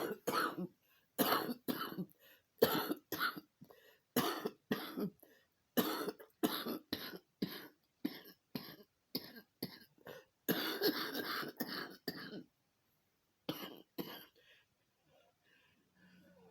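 Coughing fit: a long run of short coughs in groups of two or three, with a longer spell about eleven seconds in. It dies away a few seconds before the end.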